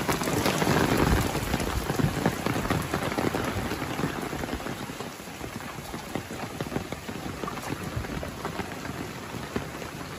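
Heavy rain falling, the drops hitting open umbrellas close by. It is louder in the first couple of seconds, then eases a little.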